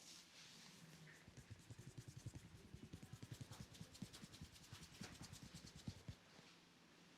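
Hands massaging a head: quick, rhythmic rubbing strokes of fingers against the scalp and hair, several a second. They start about a second in and stop about six seconds in, with a few stronger strokes near the end.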